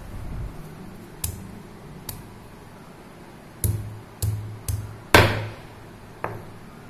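Wooden pestle knocking down on garlic cloves on a stone countertop to crush them: about seven irregular knocks, the loudest a little past halfway.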